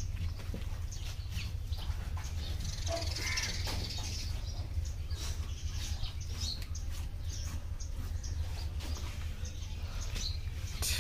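Birds calling now and then over a steady low rumble, with soft clicks and scrapes from knives and hands working a beef carcass.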